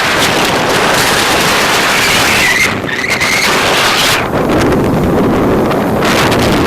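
Wind buffeting the microphone: a loud, uneven rushing, with a brief high squealing tone near the middle.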